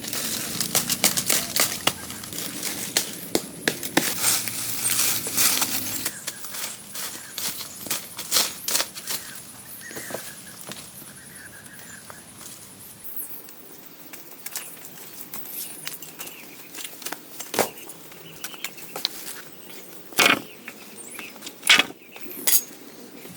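Dense rustling and crackling with many sharp clicks for about six seconds, then quieter handling with scattered sharp snaps or knocks, the loudest near the end.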